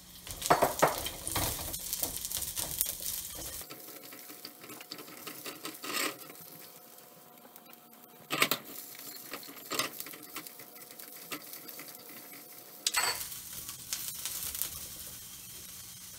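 Sliced onions sizzling in a little hot oil in a wok and being stirred with a spatula, with a few sharp knocks of the utensil against the pan. The sizzle is louder in the first few seconds and again near the end, and quieter in between.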